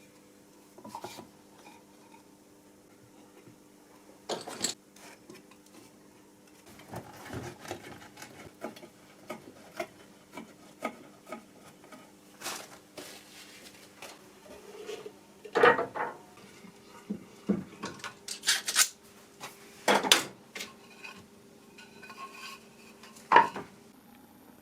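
Irregular knocks, clicks and clatter of wooden pieces and tools being handled and set down on a workbench, with a faint steady hum underneath.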